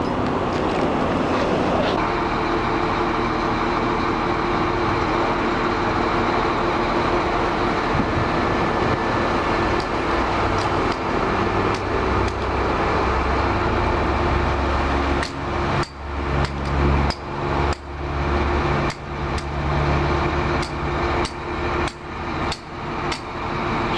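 Heavy-equipment engine running steadily, a held mechanical drone. In the second half, a run of sharp knocks, roughly one or two a second.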